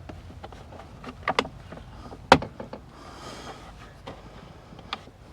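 Plastic interior trim panel being worked loose by hand, with a few sharp clicks and snaps from its clips over soft rustling of the plastic; the loudest snap comes a little over two seconds in.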